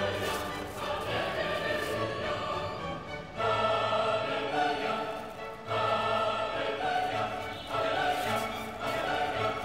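Background music: choral voices singing held chords over an orchestral backing, the chords changing every two seconds or so.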